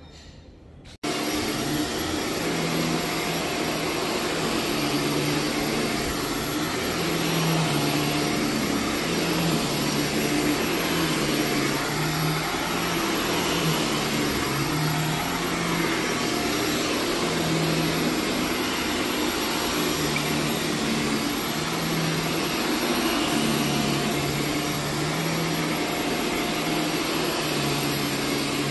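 Upright vacuum cleaner running on carpet as it is pushed back and forth, a steady motor and suction noise whose low hum swells and drops every second or two. It comes in abruptly about a second in.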